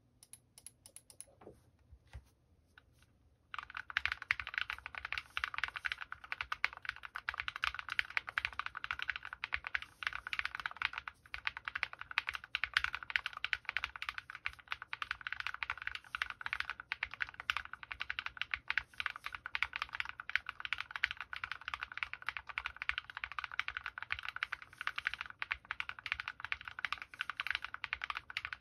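Fast, continuous typing on a Drop + OLKB Planck V6 ortholinear mechanical keyboard with Krytox-lubed linear switches (MX Black housings, Kailh Red stems) and MT3 keycaps. A few scattered keystrokes come first, then steady rapid typing begins about three and a half seconds in.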